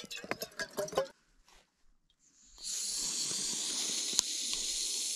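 A few quick clicks and knocks, a short silence, then a steady hiss that starts about halfway in and keeps going, with a faint click in it.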